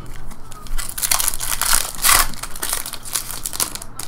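Foil wrapper of a 2015 Bowman baseball card pack crinkling and crackling as it is handled and torn open, loudest about two seconds in.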